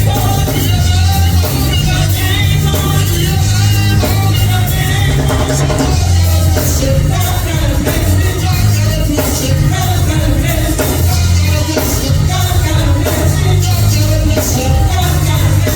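Gospel music from a church band, with drums and a strong bass line under voices singing.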